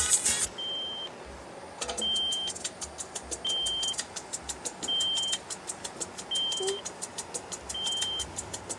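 A pickup truck's dashboard warning chime sounding a short high beep about every second and a half, with a fast, even ticking running under it. Music from the truck's stereo cuts off just after the start.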